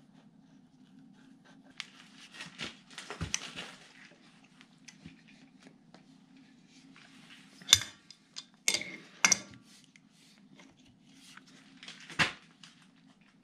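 Metal hand tools and hydraulic hose fittings clinking and clanking as they are handled and tightened. A cluster of light rattling clicks comes a couple of seconds in, then several sharp metallic clanks later on, over a faint steady low hum.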